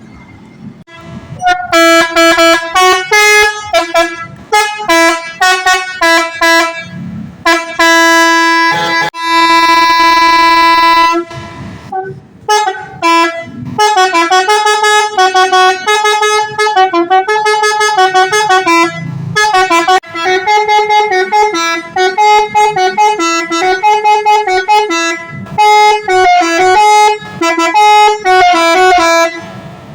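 Basuri 'telolet' multi-tone horn with roof-mounted trumpets playing quick runs of notes, a melodic toot pattern, with one long held chord about eight seconds in. It sounds loud and booming.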